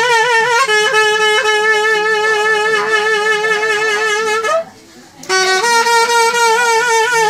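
A reed wind instrument playing a folk melody: long held notes decorated with quick wavering ornaments. The playing breaks off for about half a second roughly four and a half seconds in, then picks up again.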